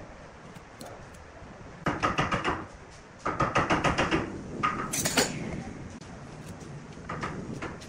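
Steel try squares and rulers clattering as they are handled and laid on a wooden bench and wood disc, in two quick runs of rattling taps, with a bright metal clink about five seconds in as a square is set down.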